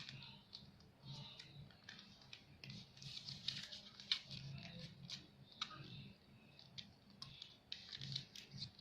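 A sheet of paper being handled and folded, with soft rustling and crinkling and scattered small clicks as the creases are pressed down.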